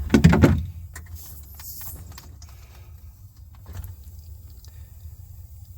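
Hands-on handling of tools and tubing: a dull thump at the start, then a scatter of small metallic clicks and rattles over a steady low hum.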